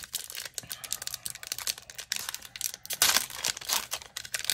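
Plastic foil wrapper of a Magic: The Gathering collector booster pack crinkling and tearing as it is opened. It comes as a run of short crackles, with a louder rustle about three seconds in.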